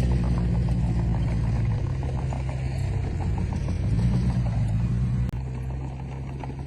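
Komatsu D20P bulldozer's diesel engine running under load, swelling twice, then an abrupt cut about five seconds in to a quieter, steady engine drone.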